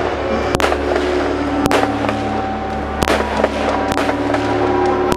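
Aerial fireworks bursting: about four sharp bangs roughly a second apart over a continuous crackle.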